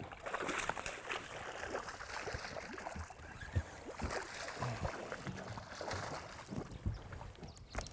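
A hooked largemouth bass thrashing and splashing at the water's surface beside a boat, as it is played to the boat. The splashing is irregular and broken, with a few dull knocks mixed in.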